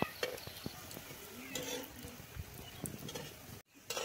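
Khurma dough sticks deep-frying in oil in an iron kadai, with a perforated skimmer clicking and scraping against the pan. A short pitched call, like an animal's, comes through about a second and a half in.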